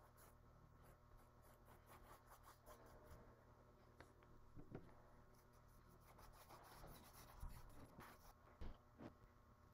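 Faint scratching of a paintbrush stroking acrylic paint onto a canvas, with a few soft knocks in the second half.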